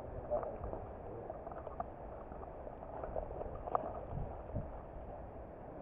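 Faint rustling with a few scattered light clicks, from the camera wearer moving over dry grass and ground.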